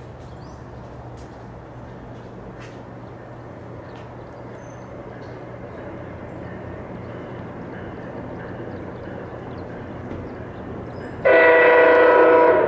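Diesel passenger train approaching with a low rumble that slowly grows louder, then about eleven seconds in its locomotive horn sounds a loud multi-note chord.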